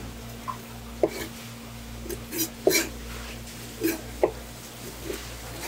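Kitchen knife knocking sharply against a wet wooden cutting board a handful of times while slicing spoon worms, over a steady low hum.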